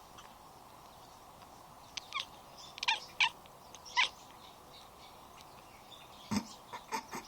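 A kitten chirping: short, separate pitched chirps, two pairs and a single one in the first half, then three more near the end.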